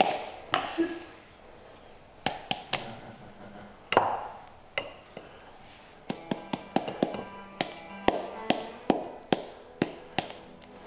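Background music with sharp tapping beats, sparse at first; held notes join the taps about halfway through.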